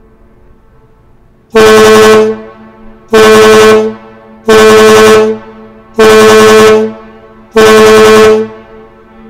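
Washington State ferry's ship whistle sounding five short blasts, evenly spaced, each a deep horn tone about a second long; five short blasts is the standard signal of doubt or danger between vessels.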